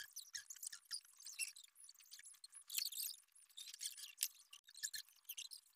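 Faint, irregular squeaking and scraping of plastic weaving strips rubbing against one another as they are pulled through the weave of a cot.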